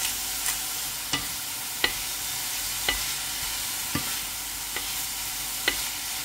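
Diced ham, onion and mushrooms sizzling in a stainless steel frying pan, with a wooden spatula stirring them and knocking against the pan every second or so.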